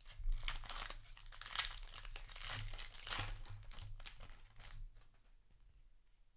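Crinkling and tearing of a foil Magic: The Gathering play booster wrapper being ripped open by hand and pulled apart. The crackling dies away about five seconds in as the cards come out.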